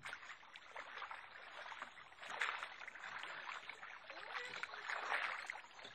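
Faint floodwater trickling and lapping: an uneven hiss full of small ticks that swells twice.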